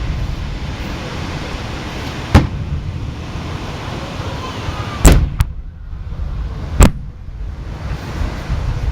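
Fireworks shells bursting overhead: sharp booms about two seconds in, a close pair around five seconds and another near seven seconds, over a steady crowd murmur.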